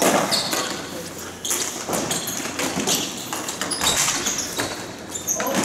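Ball hockey play: irregular knocks and thuds of sticks and the ball striking the playing surface.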